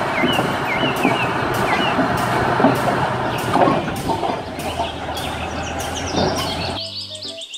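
Komatsu D475A crawler bulldozer's diesel engine running, with a regular knock about twice a second over the steady machine noise and a few bird chirps in the first two seconds. The sound cuts off abruptly near the end, giving way to short pitched tones.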